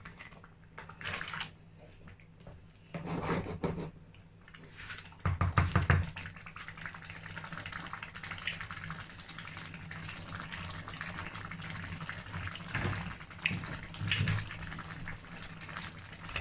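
A wooden spoon scraping and knocking in a metal pot of thick green pepper stew a few times in the first six seconds, the loudest knock about five seconds in. After that the stew simmers and bubbles steadily.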